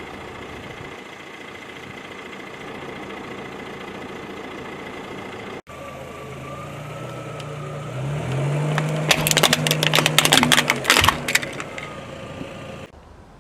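Car engine running, its pitch rising about eight seconds in as the car pulls forward, then a rapid run of sharp cracking and crunching for about two seconds as a tyre crushes objects under it.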